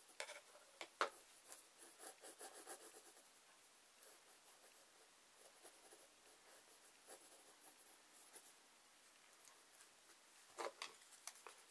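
Pencil drawing on paper, faint: short scratchy strokes, thick in the first few seconds and sparser after, then a few soft taps near the end.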